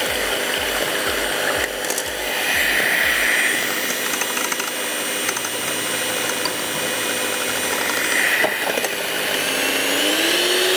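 Electric hand mixer running steadily, its beaters whisking eggs in a glass bowl. Near the end its pitch climbs a little.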